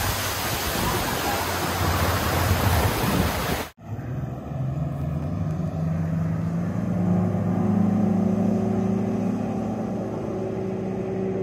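Loud rush of wind and water with an engine hum from aboard an aluminum boat under way. After a sudden cut about four seconds in, a 250 hp Yamaha outboard drones steadily as its boat speeds away across the lake, growing louder and then easing off slightly as it pulls away.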